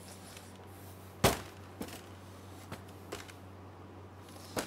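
Dough and utensils being handled on a stainless steel worktop and scale: one sharp knock about a second in, then a few light taps and clicks, over a steady low hum.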